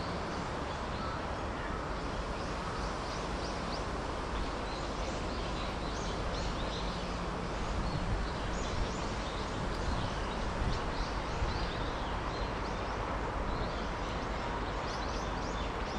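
Small birds chirping repeatedly in short, quick, high-pitched notes, thickest from the middle of the stretch onward, over a steady background hum.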